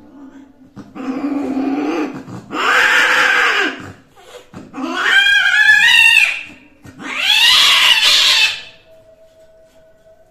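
Persian cats mating: four long, loud yowls, the third wavering in pitch and the last rising then falling.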